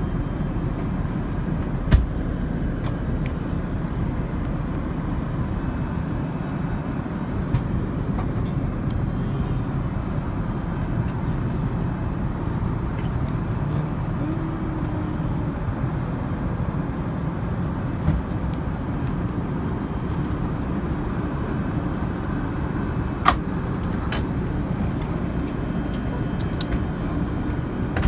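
Steady cabin noise of an Airbus A380 airliner in flight, an even low rumble and rush of engines and airflow. A sharp knock about two seconds in and a few lighter clicks later come from handling the seat's storage compartment and tray table.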